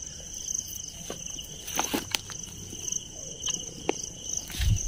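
A steady, pulsing night chorus of crickets, with a few sharp crackles and snaps from brush being pushed through, the loudest about two seconds in.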